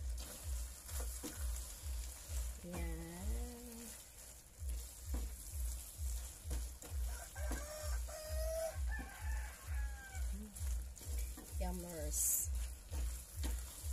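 Spaghetti in a creamy sauce being stirred and tossed with a silicone spatula in a non-stick frying pan, with a soft sizzle. A steady low throb pulses about twice a second underneath, and a few drawn-out pitched calls sound in the background.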